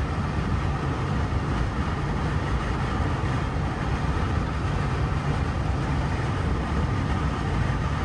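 Steady road noise of a car driving at highway speed, heard from inside the cabin: an even low rumble with no breaks.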